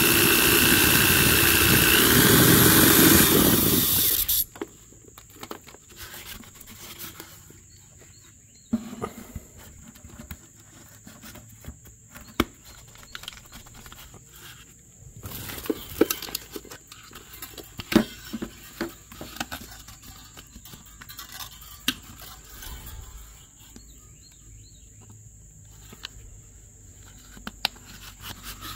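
A handheld power tool runs steadily with a whine that rises slightly in pitch, then shuts off abruptly about four seconds in. Scattered light knocks, clicks and scrapes of handling follow.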